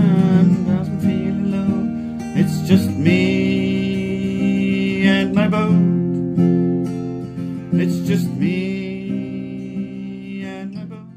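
Background music with acoustic guitar strumming, fading out toward the end.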